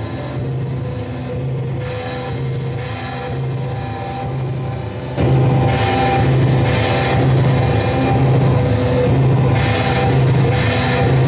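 Live electric guitar and synthesizer playing a dense, droning piece over a low bass note that pulses in a steady rhythm. About five seconds in the music suddenly gets louder and fuller.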